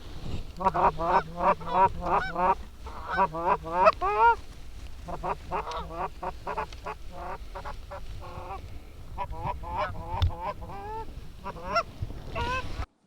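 Goose honking and clucking in rapid, loud strings of short calls, several a second, sparser through the middle, the calling of geese being worked in to decoys. It cuts off abruptly near the end.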